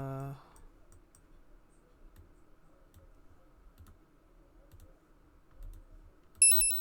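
Sparse computer mouse clicks with faint desk noise. Near the end comes a quick run of short, high electronic beeps, the loudest sound, fading away. A steady low tone cuts off just after the start.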